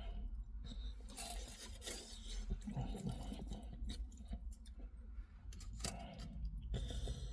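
Scraping and rustling as a doner kebab is handled and eaten, in short irregular spells.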